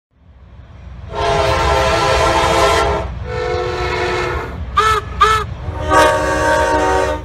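Train horn blowing a chord of several notes: a long blast, a second long blast, two quick short toots, then another long blast, over a low rumble of the train.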